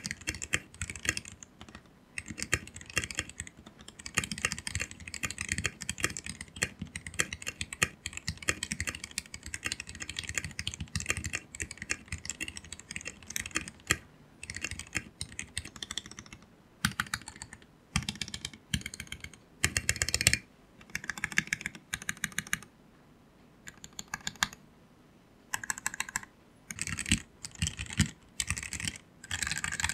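Typing on a mechanical keyboard fitted with XDA-profile keycaps: a sound test of the keycaps. A fast, continuous run of keystroke clicks for about the first half is followed by short bursts of typing separated by brief pauses.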